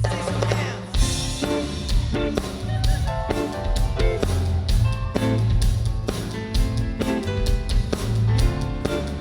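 Band playing an instrumental passage with no vocals: drum kit keeping a steady beat under bass and guitar.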